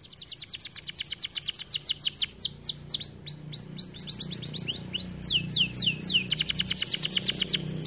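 Domestic canary singing: a rapid trill of repeated down-slurred whistles that slows to separate swooping notes in the middle and speeds up again into a fast trill near the end.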